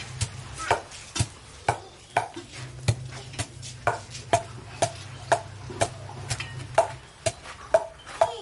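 Long wooden pestle pounding a wet green paste in a mortar: steady, even strokes about twice a second.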